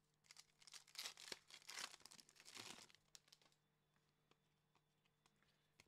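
A 2021 Donruss baseball card pack's wrapper being torn open and crinkled for about three seconds, followed by a few faint clicks as it settles.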